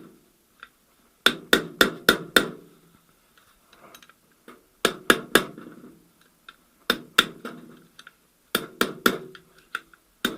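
Hammer blows on metal during gearbox teardown, in four quick runs of two to five sharp, ringing knocks with short pauses between.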